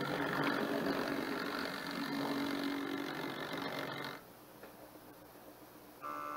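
OO gauge model pannier tank locomotive running along the track, its small electric motor humming steadily over the rumble of wheels on rail, until the sound cuts off about four seconds in. Near the end, background music starts.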